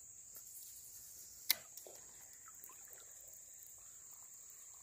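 Insects chirring steadily at a high pitch, faint, with one sharp click about a second and a half in.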